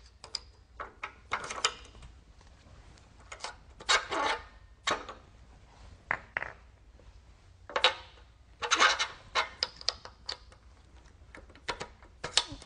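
Irregular metal clinks, knocks and short scrapes as a beading die is fitted into a Baileigh PH-19 power hammer.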